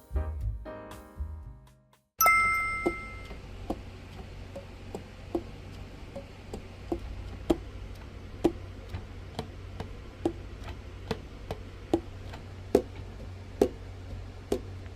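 Background piano music fading out, then a chime-like ding. After the ding, light irregular clicks, about one or two a second, over a low steady hum.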